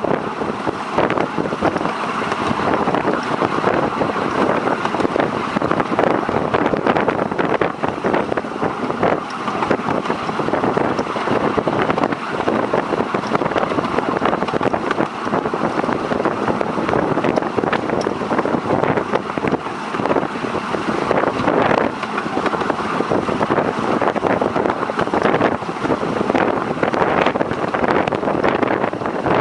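Miniature railway train running along its track, heard from a carriage behind the locomotive: a steady rumble and clatter of wheels on the rails, with wind on the microphone.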